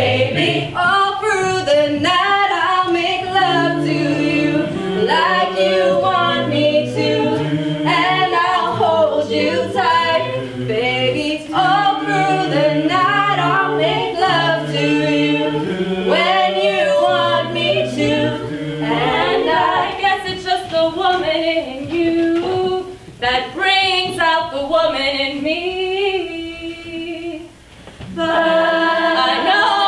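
Vocal group singing a cappella in harmony, low voices holding steady bass notes under a higher melody line. The singing drops briefly near the end, then the full group comes back in.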